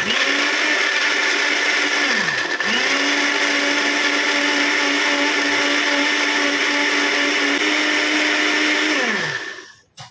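Electric countertop blender running on a wet mix of ginger, lemongrass, garlic, oil and water: a run of about two seconds, a brief stop, then a longer run of about six seconds that winds down with a falling whine. A short click follows near the end.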